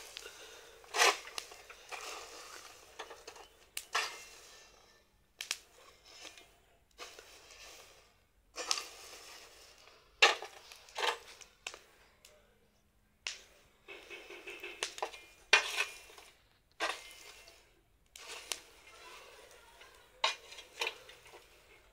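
Smouldering dry banana peels being turned over with a stick on an iron sheet: a crunching scrape every second or two, with rustling between the strokes. The peels are being flipped so they char into charcoal rather than flaring up and burning to ash.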